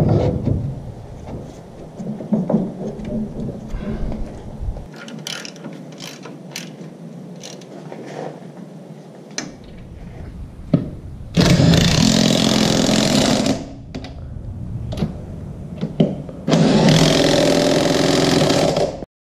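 Scattered metal clicks and clinks of hand work on a truck axle, then an impact wrench run twice at a truck wheel's lug nuts, about two seconds each, the second cutting off abruptly near the end.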